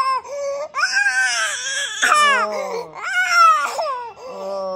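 A baby crying hard: a run of four or five pitched wails, each rising and falling and broken off by short gasps for breath.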